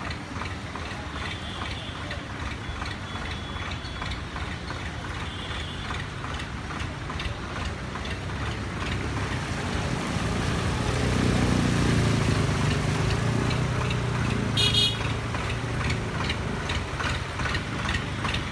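Motor vehicle engine running as vehicles drive through floodwater, growing louder about ten seconds in. A high horn sounds on and off in the first few seconds, and a short high beep comes about fifteen seconds in.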